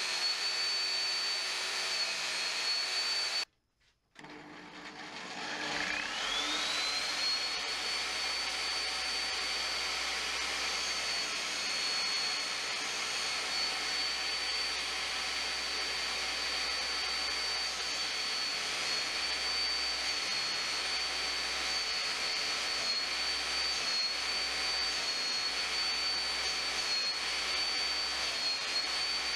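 Table saw motor spinning a diamond cup wheel, a steady high whine. About three and a half seconds in the sound cuts out briefly, then the whine rises back up to full speed as the motor spins up. Later the pitch dips slightly now and then as the saw blade's teeth are held against the diamond cup for grinding.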